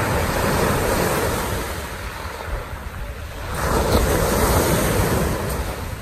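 Sea waves breaking and washing up a pebble beach, two surges swelling and fading about three seconds apart, with wind rumbling on the microphone.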